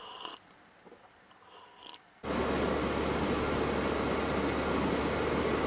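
A few faint small noises over near-quiet room tone, then an abrupt cut about two seconds in to the steady drone of a GAZelle van running, heard from inside its cab.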